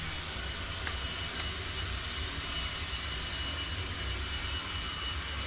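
Steady low engine-like drone with a faint, constant high whine over it and no distinct knocks or tool strikes.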